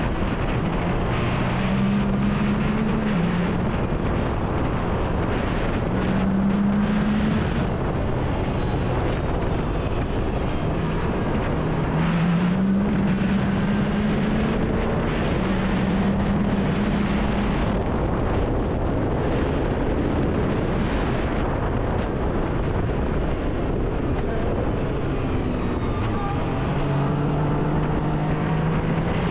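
Yamaha YXZ1000R side-by-side's three-cylinder engine under way, its pitch climbing and dropping back again and again as it accelerates and shifts, over a steady rush of wind noise.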